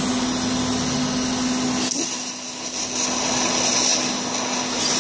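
TIG welding arc hissing steadily over a steady electrical hum, with a short break about two seconds in before the arc runs again. The arc is going back over a finished weld on an AN -6 fitting on a fuel rail, re-melting it to smooth it out.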